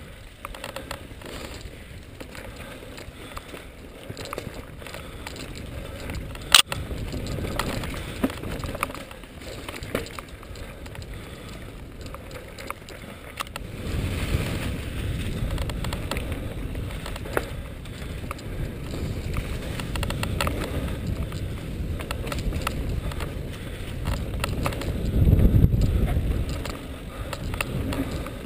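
Mountain bike riding fast down a leaf-covered dirt singletrack, heard from a camera on the bike or rider: tyres rolling over dry leaves and dirt, rattles and clicks from the bike, and one sharp knock about a quarter of the way in. Wind rumble on the microphone grows about halfway through and is loudest near the end.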